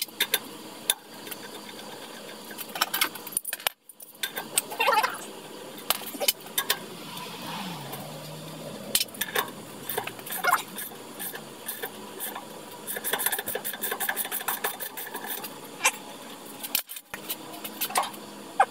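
Socket wrench ratchet clicking and metal clinks as lug nuts are worked off a tractor's rear wheel, with a fast run of ratchet clicks past the middle.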